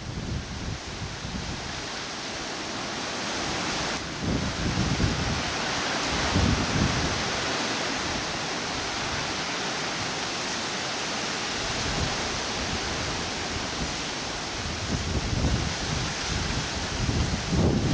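Wind gusting through the trees and grass, a steady rushing hiss, with gusts buffeting the microphone in low rumbles several times.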